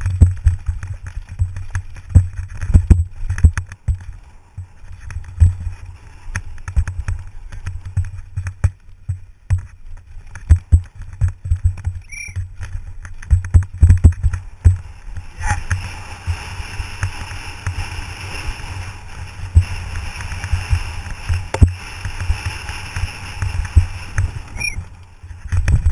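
Downhill mountain bike ridden fast over a rough, bumpy dirt course, heard from a GoPro on the bike or rider: constant wind rumble on the microphone with frequent sharp knocks and rattles from the bike over the bumps. A steadier hiss joins for about ten seconds in the second half.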